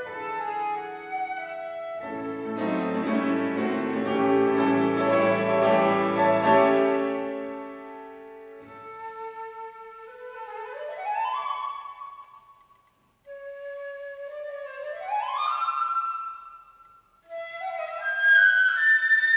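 Concert flute with piano accompaniment: the piano plays full chords under the flute in the first half, then drops out and the flute plays alone, with two quick rising runs, each followed by a short pause, before a high passage near the end.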